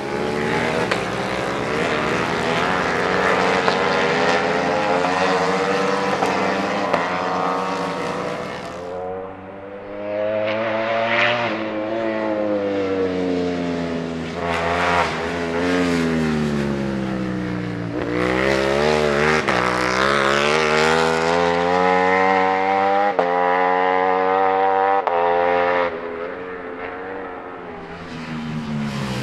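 Ducati Panigale V4 superbikes on race exhausts, their V4 engines accelerating hard through the gears, the pitch climbing and then dropping at each shift. The engine note falls away and softens twice, about nine seconds in and near the end, as bikes back off and pass.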